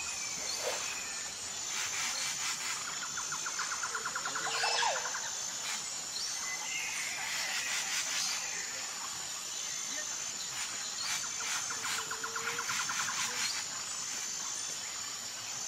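Riverside ambience: a steady high insect chirring with regular chirps, scattered bird calls, and a rapid pulsing trill that comes twice, about two seconds in and again past ten seconds.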